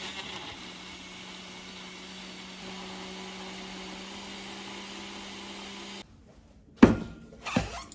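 Ninja countertop blender motor running steadily at speed, blending a thick green smoothie, with a steady low hum under the whirr; it cuts off suddenly about six seconds in. Two sharp knocks follow near the end.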